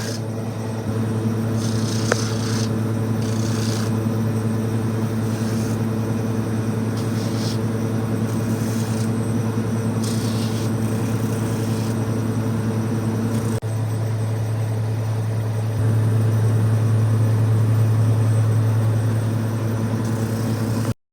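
A motor-driven machine running with a steady hum, growing louder about three-quarters of the way through, with a few short higher hisses in the first half. The sound cuts off abruptly at the very end.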